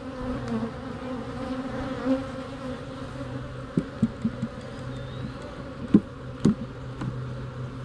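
Honey bees buzzing in a steady hum around an opened hive whose frames are being lifted out. Several sharp knocks come in the second half, the two loudest about six seconds in.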